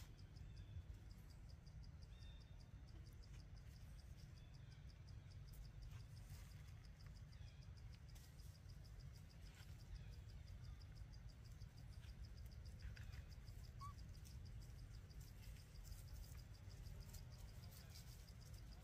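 Faint outdoor ambience: insect chirping as a fast, even pulse of high ticks over a low steady rumble.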